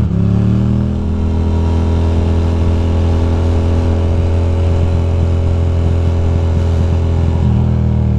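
2006 Ducati Monster 620's air-cooled L-twin engine under way. The revs climb in the first second, then the engine runs at steady revs, and the note shifts near the end.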